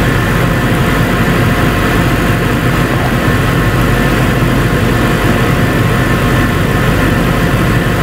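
2003 Ford Thunderbird's 3.9-litre V8 idling steadily with the air-conditioning compressor engaged.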